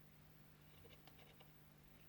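Near silence: faint room tone with a low steady hum and a few very faint small clicks about a second in.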